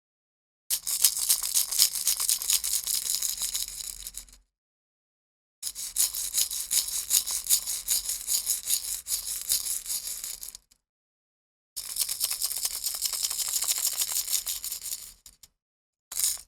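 Small box holding screws, a plastic joint, a one-yen coin and a piece of electric guitar string, shaken like a shaker: its contents rattle densely in three long runs of a few seconds each, with short pauses between them, then one short shake near the end.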